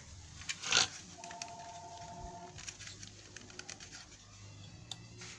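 Light knocks and rubbing from the hard plastic housing of a pond pump being handled and turned in the hand, with one sharper knock about a second in. A faint steady two-note tone sounds briefly in the background.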